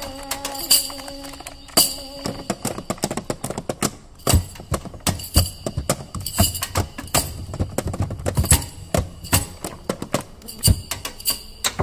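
Music with percussion: a held tone over light percussion for about the first two seconds, then fast, dense drum and percussion strikes.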